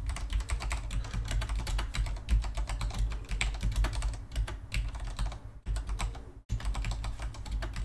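Rapid typing on a computer keyboard: a dense, steady run of key clicks that breaks off for an instant twice a little past two-thirds of the way through, over a low steady hum.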